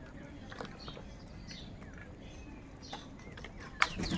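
Birds feeding together give short, scattered chirps that slide down in pitch. About a second before the end there is one sharp knock, the loudest sound.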